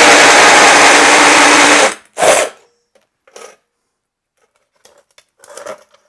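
Power drill spinning a hole saw into a hard cast refractory furnace lid, a loud steady grinding with a constant hum, which stops abruptly about two seconds in. The refractory is hard enough to grind the teeth off the hole saw. A short clunk follows, then a few faint handling sounds.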